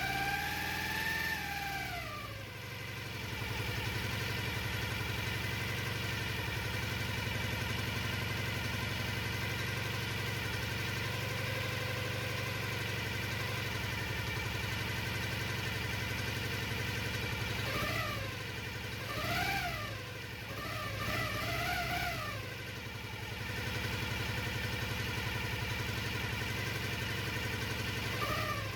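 Jawa 500 OHC parallel-twin four-stroke motorcycle engine running after a general overhaul. It drops from a rev to a steady idle in the first couple of seconds, gets a quick series of throttle blips about two-thirds of the way in, settles back to idle, and gets one more blip near the end.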